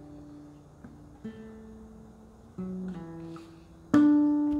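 Acoustic guitar played solo: a few soft, fading notes and chord changes, then a loud strummed chord near the end that is left ringing as the closing chord of the song.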